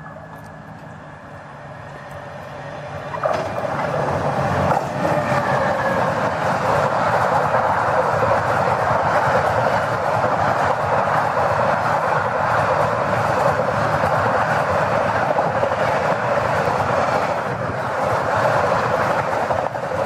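Indian Railways Bhuj Dadar Express approaching and passing close along a station platform at speed. The sound builds over the first three seconds, comes in suddenly about 3 s in as the train reaches the platform, then holds as a steady loud rush of coaches and wheels on the rails.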